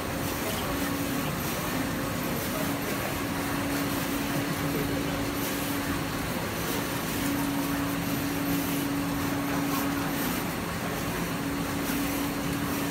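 Factory-floor noise of Panasonic NPM surface-mount pick-and-place machines running, a steady mechanical hiss with a low hum that cuts in and out every second or two.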